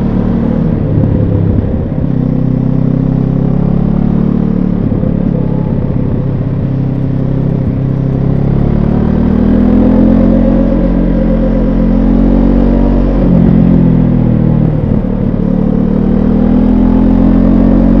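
Benelli TRK 702 X motorcycle's parallel-twin engine heard from on board while riding, its revs rising and falling with the throttle, with dips in pitch around 13 and 15 seconds in and a climb near the end.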